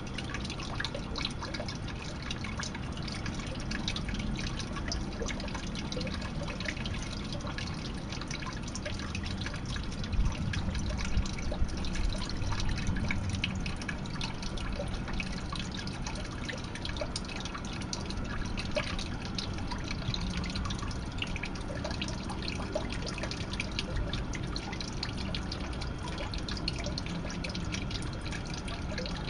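Water dripping and trickling into a koi pond, a steady patter of many small drips. A few louder low rumbles come around ten to thirteen seconds in.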